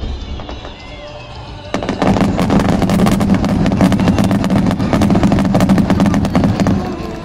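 Aerial firework shell bursting about two seconds in, followed by several seconds of dense crackling from its glittering stars, which dies down near the end.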